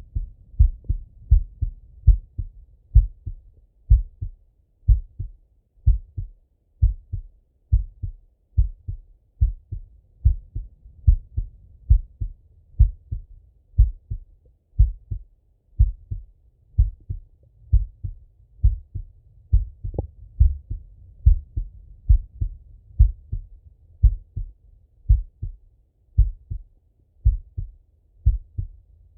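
A man's heartbeat heard through a Littmann stethoscope: slow, steady lub-dub beats, each a pair of low thumps, about one beat a second.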